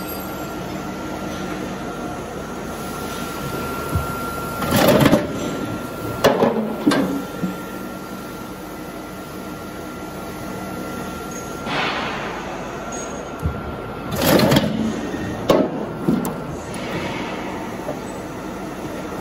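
Steel roof-sheet roll forming machine running with a steady hum and a thin whine. Louder rough, noisy passages come twice, about 5 and 14 seconds in, each followed by a shorter one, as the formed steel panel moves through and out of the machine.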